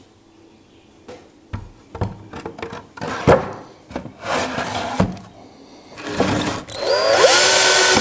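Wooden parts knocking and clattering as the bird-feeder frame is fitted over its wooden post, then about six seconds in a cordless drill spins up with a rising whine and runs steadily into the wood.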